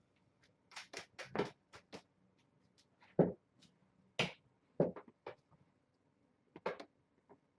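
Irregular light taps and knocks, about a dozen, from kittens' paws scrambling about in play, the loudest a little over three seconds in.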